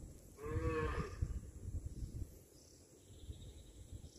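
A cow moos once, briefly, about half a second in, over a steady low rumbling noise.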